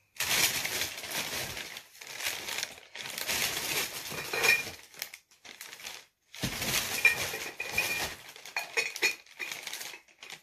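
Plastic shopping bag rustling and crinkling as hands rummage through it, in several bursts with short pauses and lighter crackles near the end.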